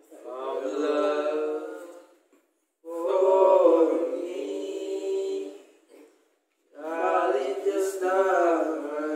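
A small group of male voices singing a cappella together, in three phrases with short breaths between them; the last phrase runs on past the end.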